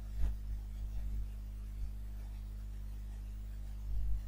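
Steady low hum of a microphone's background noise, with a few faint soft thumps about a quarter second in, around one second, and again near the end.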